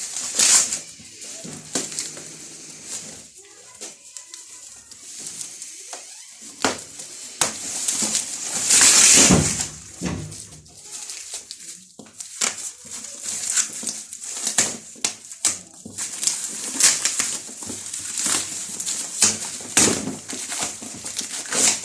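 Packaging of a ring light and phone stand being handled and opened: rustling and crinkling plastic wrap, cardboard scrapes and sharp clicks and knocks of parts. A longer, louder rustle comes about nine seconds in.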